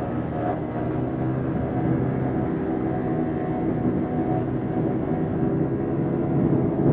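Outboard motor of a small speedboat running steadily at speed, an even engine drone that holds its pitch.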